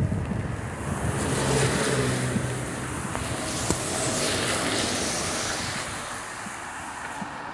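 A small car driving past on a wet road: the hiss of its tyres on the wet asphalt swells over the first few seconds, with a low engine hum, then fades away.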